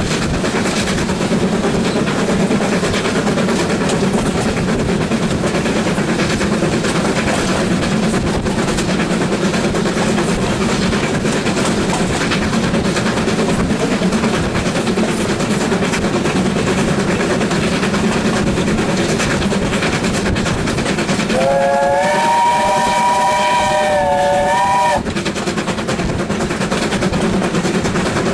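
Steam locomotive 76084, a BR Standard Class 4MT 2-6-0, working hard, its rapid exhaust beats and the carriage wheels on the rails heard through an open carriage window. Past two-thirds of the way in, the locomotive's steam whistle sounds for about three seconds, sliding up into a steady chord before it cuts off.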